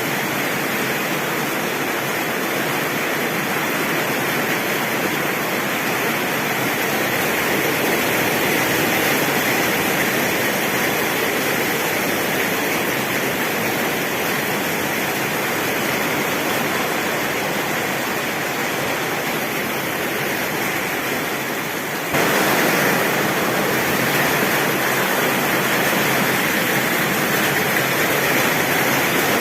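Heavy rain pouring steadily on a tin roof, a dense, even hiss. About three-quarters of the way through it abruptly steps up a little louder.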